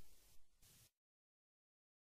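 Near silence: the faint fading echo of an Emergency Alert System end-of-message data burst dies away, then dead digital silence from about a second in.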